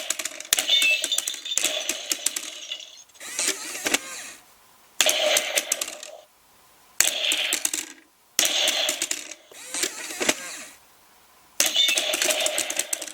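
Electronic Nerf scoring target going off in a series of about six bursts, each a second or two long and full of quick clicks and rattles, with short gaps between them.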